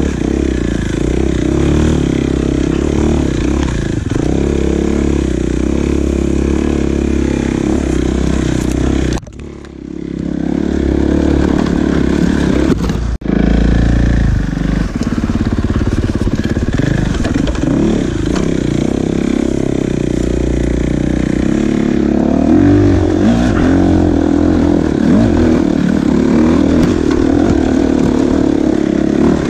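Dirt bike engine running under load as it is ridden over a rutted trail. About nine seconds in the engine sound drops off suddenly, builds back up over the next few seconds, and is loud again from about thirteen seconds.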